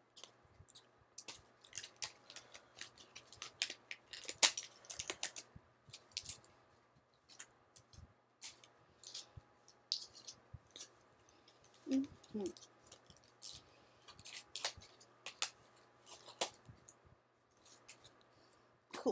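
Cardboard and plastic toy packaging being handled and pulled apart: irregular crinkling, rustling and sharp clicks and taps.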